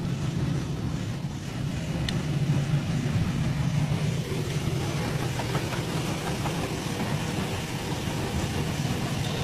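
CNC lathe running, a steady low hum with an even hiss over it.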